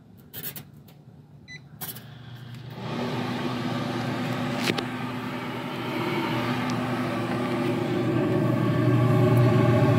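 A few small clicks from the grill controller's buttons, then about three seconds in the pellet grill starts its ignition cycle: a steady electric motor hum from the grill's fan and auger, which gets louder near the end.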